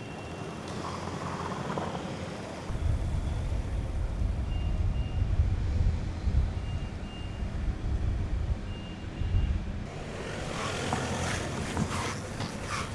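Low vehicle rumble with three short, high electronic beeps over it, followed about ten seconds in by a clatter of sharp knocks.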